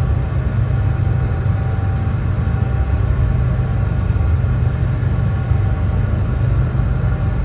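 Brown noise: a steady, deep, even rumble of hiss with most of its weight in the bass and little in the highs.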